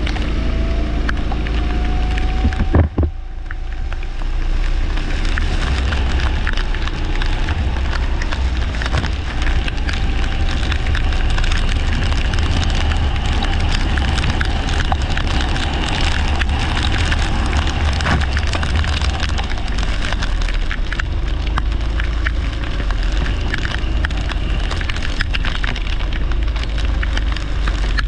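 Racing kart running in the rain, its engine note rising faintly as it accelerates over the first few seconds, buried under heavy wind rumble and crackling rain noise on the microphone. A sharp knock about three seconds in.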